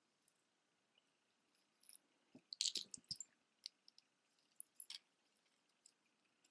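Light clinks and clicks of costume jewelry being handled: metal chains and pieces tapping against each other, a quick cluster of them a little before the middle, then a few single clicks.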